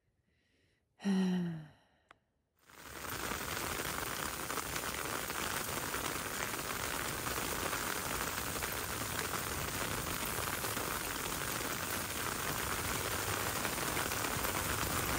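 A short sigh about a second in. Then, suddenly, a steady hissing patter of precipitation on a tent, heard from inside, with no let-up.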